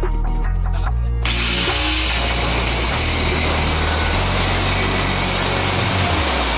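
Background music, then about a second in an angle grinder with a thin cut-off disc starts cutting through steel held in a vise: a loud, steady grinding that runs on, with the music's bass still underneath.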